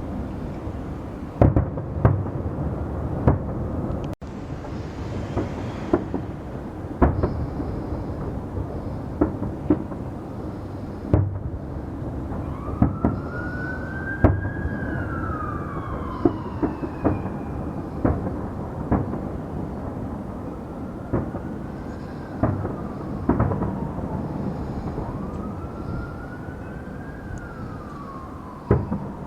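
Fireworks going off in a steady run of sharp bangs over a constant rumble. From about twelve seconds in, an emergency vehicle siren wails, rising and falling over and over.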